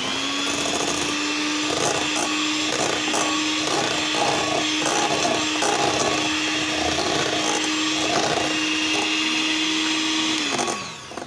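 Electric hand mixer with twin wire beaters beating softened butter. The motor spins up at the start and runs at a steady pitch with a regular pulsing about twice a second as the beaters work through the butter, then winds down near the end.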